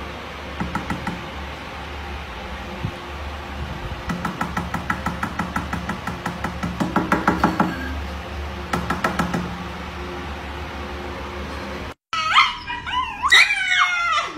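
Shiba Inu giving loud, high, wavering yelling cries near the end as its paw is held. Before that, a few runs of rapid even pulses over a steady low hum.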